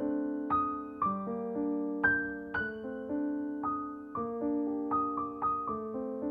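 Background music: a gentle piano melody of struck notes that fade between strikes.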